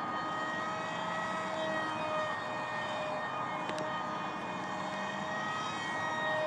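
Electric power system of an FRC Foamies Alpha Jet MK2 foam RC plane in flight: a Power Up 450 2200kv brushless outrunner motor spinning an APC 6x4 propeller, giving a steady whine whose pitch steps slightly up and down.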